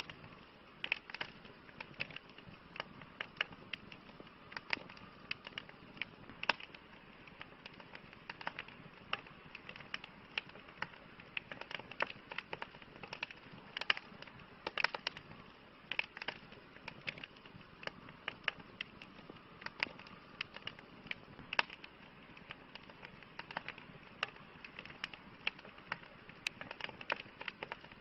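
Bonfire crackling: irregular sharp pops and snaps of burning wood, sometimes several close together, over a soft steady hiss.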